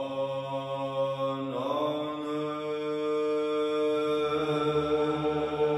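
Orthodox church chanting: long held notes over a steady low drone. The pitch moves to a new note about a second and a half in, and a deeper held tone joins about four seconds in.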